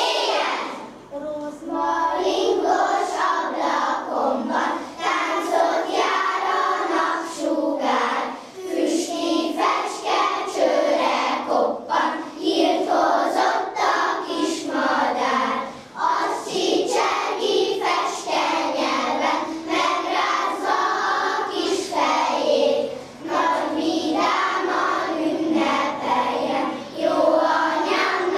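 A group of young schoolchildren singing a song together in chorus, with brief breaks between phrases every several seconds.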